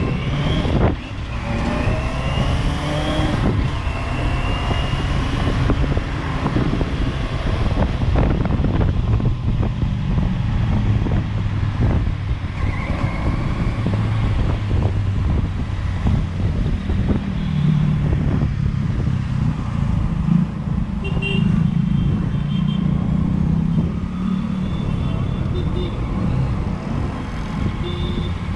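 Motorcycle engine running while the bike rides through city traffic, heard from on board with road noise; the revs climb in the first few seconds as it pulls away.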